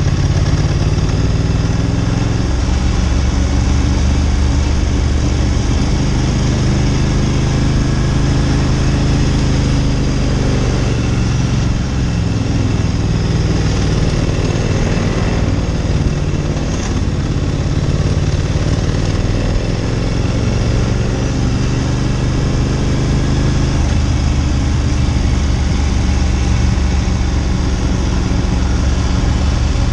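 Ducati Monster 900's air-cooled L-twin engine running under way, its low note mostly steady. Roughly in the middle the pitch falls and then climbs again as engine speed changes.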